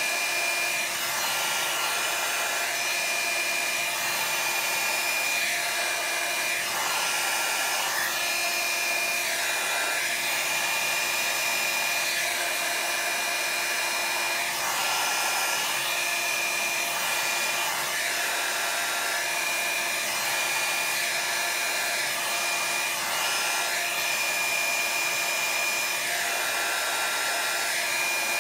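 A small handheld electric blower runs steadily, blowing air over wet alcohol ink to push and dry it. It makes a continuous motor whine and airflow noise, and its tone shifts every second or two.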